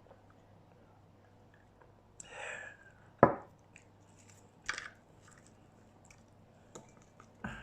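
Crunchy bites and chewing of battered fried chicken: a few separate sharp crunches, the loudest about three seconds in, with softer ones later.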